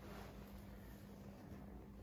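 Near silence: quiet room tone with a faint steady hum.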